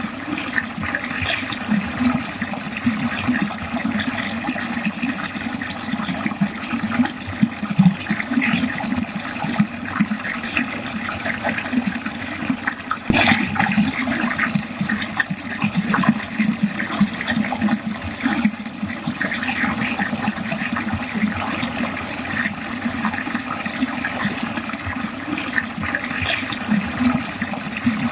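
Water running steadily down a drain in a continuous, unbroken flow, with a single brief click about halfway through.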